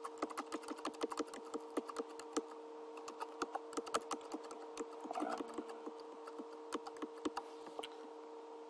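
Computer keyboard keys clicking in rapid, irregular presses, several a second, stepping the selection down through a software list, over a steady electrical hum.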